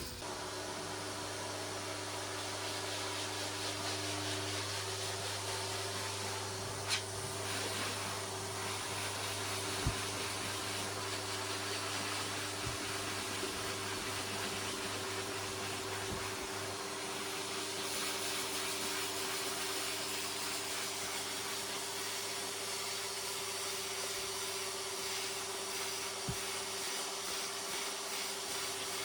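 High-velocity dog grooming dryer blowing through its hose, drying a wet greyhound: a steady motor hum with an even rush of air.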